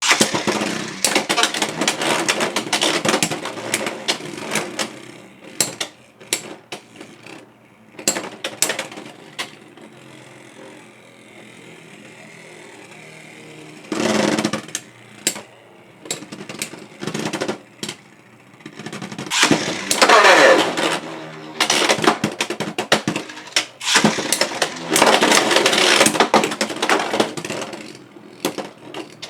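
Beyblade X spinning tops, Silver Wolf and Dran Buster, launched with ripcord launchers and battling in a plastic stadium: fast metallic-plastic clattering and clashing, with a quieter stretch of steady spinning near the middle and more bursts of hard collisions later on.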